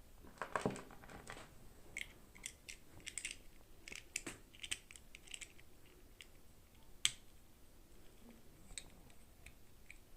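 Toy packaging handled close up during a doll unboxing: a brief plastic rustle, then a run of small clicks and taps, with one sharper click about seven seconds in and only faint ticks after it.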